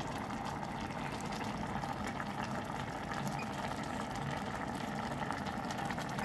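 Pot of water with onions and peanuts boiling on an induction cooktop: a steady bubbling hiss with fine crackle.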